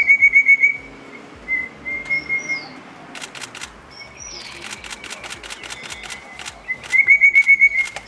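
Taiwan rosefinch calling: a fast run of about eight short, sharp notes at the start and again near the end, with a softer run between and a few high, thin falling notes. Faint clicks come in the middle.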